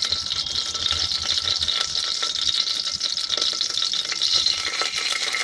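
Fenugreek seeds spluttering in hot oil in a pressure cooker: a steady sizzling hiss with small crackles.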